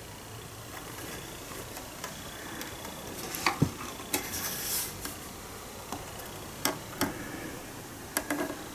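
Handling noise from an opened cassette deck being turned over in the hands: scattered clicks and knocks of its wood-and-metal cabinet and chassis, with a brief rustle about four seconds in.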